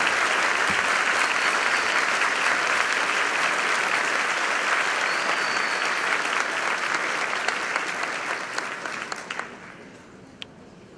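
Audience applauding with dense clapping that thins out and dies away about nine seconds in, leaving a few last claps.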